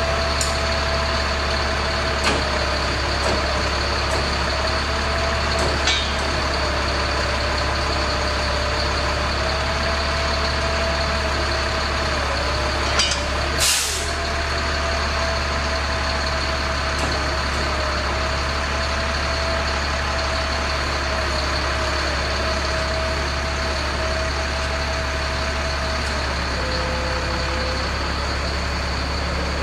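Service truck's engine running steadily with a continuous whine over it. A short burst of hissing air comes about fourteen seconds in.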